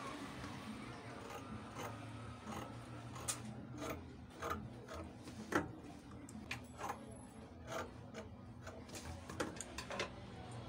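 Scissors snipping through satin fabric in irregular, uneven clicks, with the fabric rustling as it is moved and folded.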